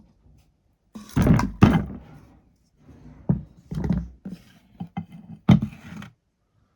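A string of sharp knocks and thuds, about eight in five seconds and irregularly spaced, in a small room.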